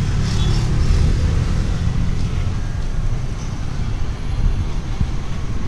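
Street traffic: cars passing on the road, a steady low noise.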